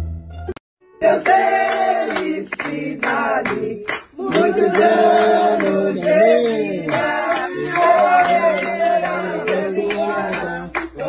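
Several voices singing together, with hand claps, starting about a second in after a brief break in the sound.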